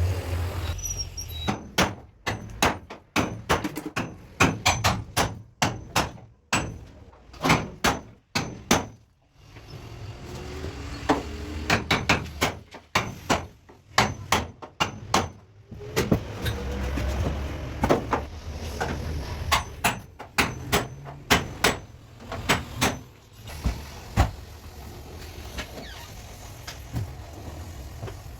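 Hammer strikes on car-body sheet metal, a run of sharp knocks at about two to three a second with short pauses, over a low rumble. The knocks die away near the end.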